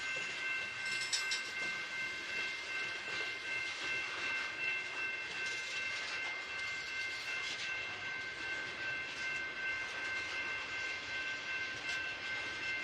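Loaded freight train cars (covered hoppers and boxcars) rolling past on the rails, with a steady rumble of wheels and faint clicks over the track. A steady high-pitched ringing tone sounds over it the whole time.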